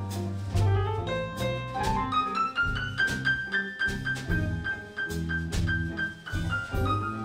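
Band playing an instrumental break of a slow blues song, with bass and drums under a lead line. The lead climbs step by step, then repeats one high note over and over before coming back down near the end.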